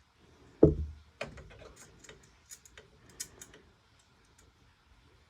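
A single thump, then scattered light clicks and taps of a tiny metal screw and magnetic screwdriver against the PS5's M.2 SSD slot as the retaining screw is fitted.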